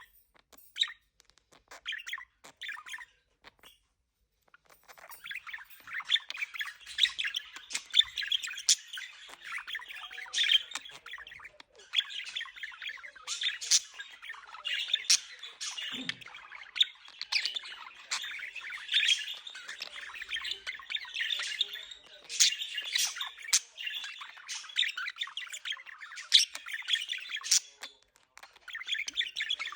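Budgerigars chattering and warbling, with frequent sharp chirps and squawks; sparse at first with a brief pause, then a steady, busy stream of calls.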